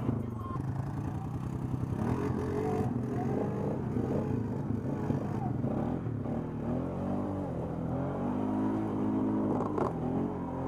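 ATV engine running while riding over rough, rocky ground, its revs rising and falling over and over. A single sharp knock comes near the end.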